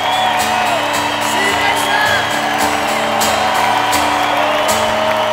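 Live band playing the instrumental close of the song, with crowd whoops over the music.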